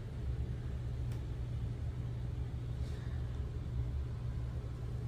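A steady low rumble, with a faint click about a second in and another a little later.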